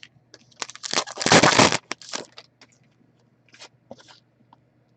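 Crinkling and scraping of trading-card packaging being handled, with a loud crackling burst lasting about a second near the start, followed by a few scattered small clicks and rustles.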